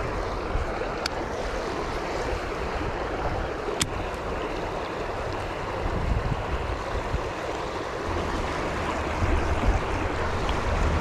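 Water rushing over a small concrete spillway weir, a steady wash of falling water. Two short sharp clicks come through, about one second and about four seconds in.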